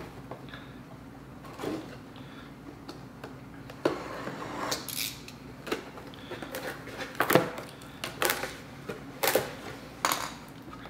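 Cardboard box being opened and handled by hand: its flaps scrape and rustle, with scattered knocks and taps, the loudest about seven seconds in.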